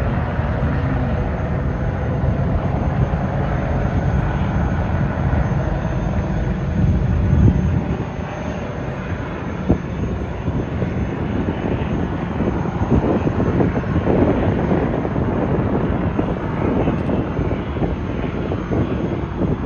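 Performance powerboat engines running steadily with a loud, low rumble.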